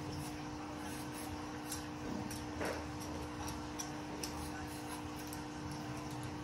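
Hand-held vegetable peeler scraping the skin off a cucumber: short scrapes and clicks at irregular intervals, over a steady low hum.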